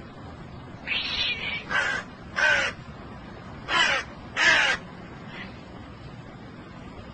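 Hooded crow cawing: five harsh caws in quick succession starting about a second in, the first the longest, then one faint caw.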